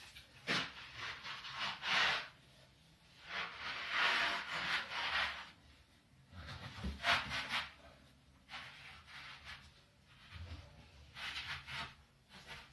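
Plastic pipe of a wall-mounted recuperator rubbing and scraping against the bore of a drilled wall hole as it is pushed through, in about five separate strokes.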